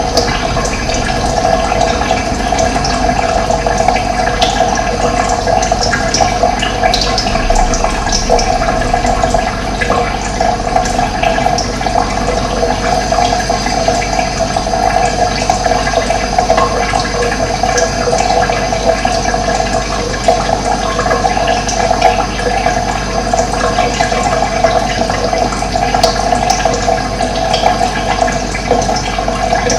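Running water rushing steadily, with short bird chirps scattered over it.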